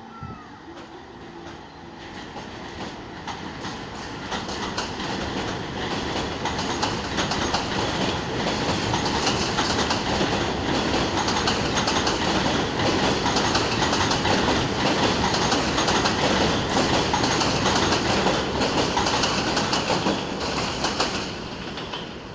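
R46 subway train running through the station, its wheels clacking rapidly over the rail joints with some squeal. It grows louder over the first several seconds, holds steady, and eases off near the end.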